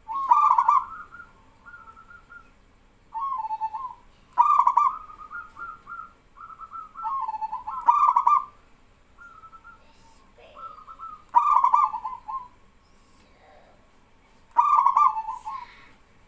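Zebra doves (perkutut) cooing in repeated phrases, a loud phrase about every three and a half seconds with softer coos between, the birds calling back and forth.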